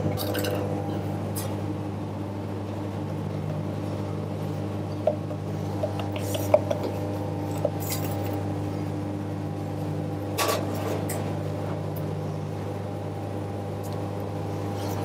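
Steady hum of kitchen machinery, with a few light clinks of crockery or utensils.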